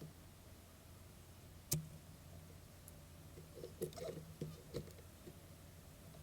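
Wooden hive parts being handled: one sharp knock about two seconds in, then a cluster of short knocks and scrapes around the four-second mark, over a faint steady low hum.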